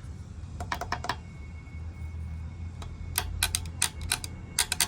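Light, sharp metal clicks from hand work on small motorcycle drive parts: a quick group of about four about a second in, a few single clicks, then a fast run of clicks near the end.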